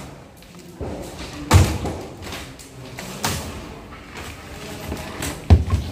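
A long steel bar swung against thin wall panels and their metal frame during demolition: three loud bangs about two seconds apart, the last the loudest.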